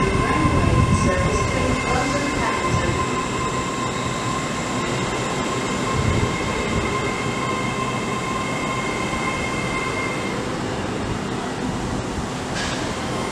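Hitachi Class 800 train running slowly past along the platform, a steady high whine over the rumble of its wheels and running gear.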